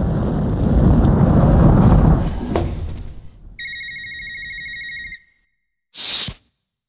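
A deep, loud crash rumble from an elevator smashing down its shaft, dying away over the first few seconds with a sharp click partway through. Then a pulsing telephone-style ring sounds for about a second and a half, and a brief rush of noise comes near the end.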